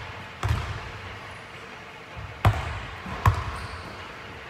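A basketball bouncing on a hardwood gym floor: three separate thuds, about half a second in, about two and a half seconds in, and again under a second later, each echoing in the large hall.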